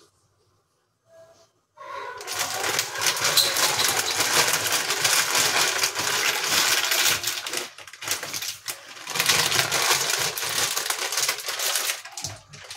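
Dry penne pasta rattling and clattering as it is shaken out of a plastic bag into a steel pot of water. It starts after about two seconds of near silence and runs in dense, crackling spells, with a brief break about eight seconds in.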